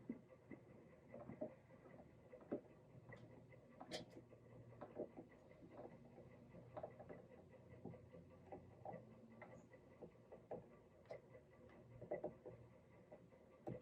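Faint, irregular small clicks and taps, a couple a second, from hand work on the archtop guitar's wooden body and the tools on the bench.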